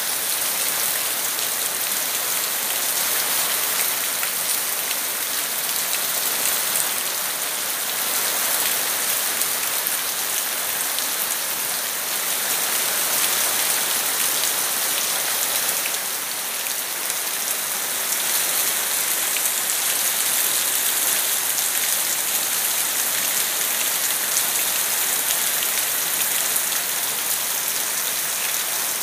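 Heavy rain falling steadily on garden foliage and hard surfaces, an even hiss that does not let up.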